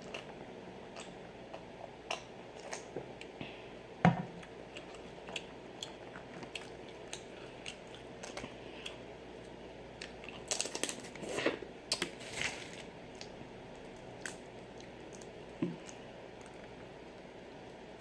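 Close-up mouth sounds of a person eating boiled shrimp and crawfish: chewing and lip smacking as scattered short wet clicks. One louder smack comes about four seconds in, and a busier run of smacks a little past halfway.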